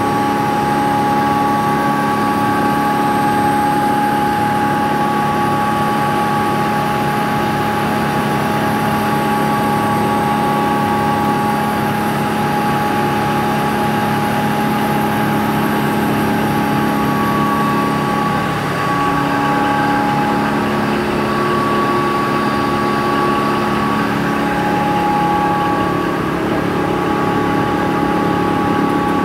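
Turmeric grinding plant with an impact pulverizer and its electric motor running: a loud, steady machine hum and whine with several steady tones, dipping briefly about two-thirds of the way through.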